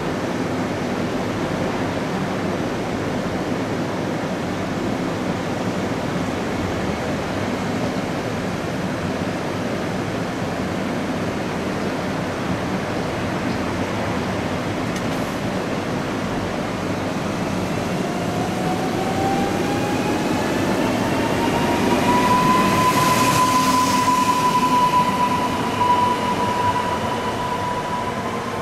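Newag Impuls electric multiple unit ED78-011 humming steadily, then moving off: the electric traction drive gives a whine that rises in pitch for a few seconds and then holds at a steady note.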